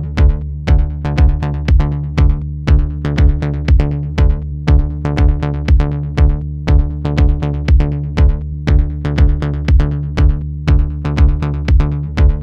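Background electronic music with a steady drum-machine beat, about two beats a second, over a deep bass.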